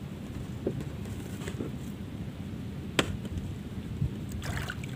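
Steady wind rumble on the microphone and water lapping against a small wooden boat's hull. A sharp knock about three seconds in and a dull thump about a second later.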